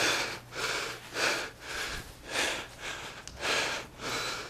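Heavy, fast breathing close to the microphone, about two breaths a second: a boxer winded after a round of pad work.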